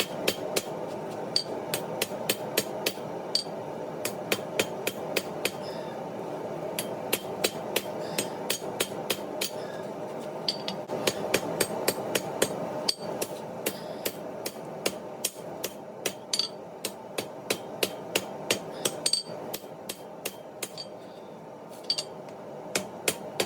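Hand hammer striking leaf-spring steel on an anvil during forging, about two to three blows a second with short pauses, each blow with a brief metallic ring. A steady rushing noise runs underneath.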